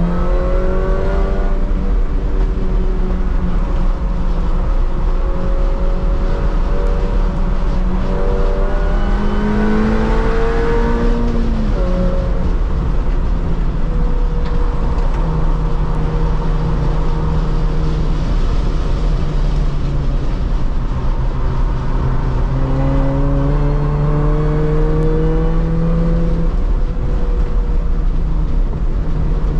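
R53 Mini Cooper S's supercharged 1.6-litre four-cylinder engine heard from inside the cabin at full track pace, over steady road and wind rumble. The revs climb twice, about eight seconds in and again past twenty seconds, and each climb ends in a sudden drop as the driver lifts or changes gear.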